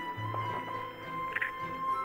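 Background music with held notes over a low bass line.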